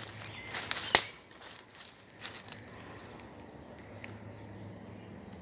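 Footsteps crunching through dry leaf litter and twigs, with a sharp crack about a second in. The steps then stop, and a small bird gives short high chirps about every half second.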